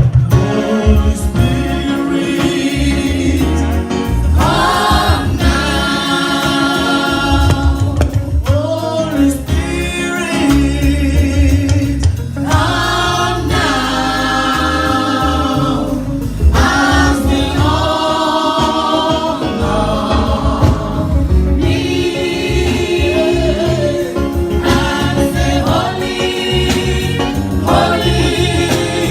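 Gospel choir singing with instrumental backing and a steady bass line underneath.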